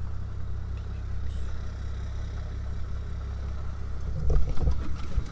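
Truck engine running steadily with a low rumble, heard from inside the cab. A short run of knocks and rattles comes in about four seconds in.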